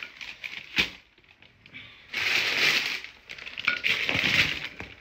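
A bag crinkling as it is handled, in two loud stretches of crackling rustle, after a short knock under a second in.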